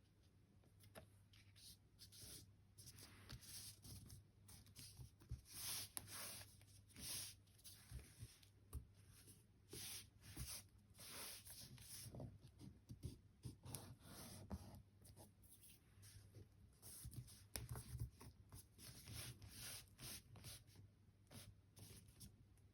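Faint rubbing and rustling of hands pressing and smoothing a glued paper cover onto a binder, in many short, uneven strokes.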